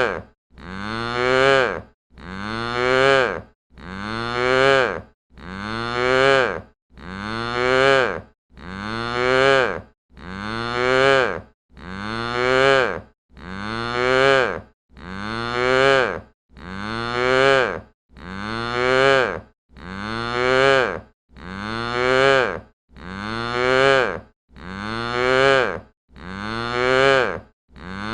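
A cow mooing, one short call repeated over and over about every second and a half, each call rising in pitch. The sound is dry, with no echo.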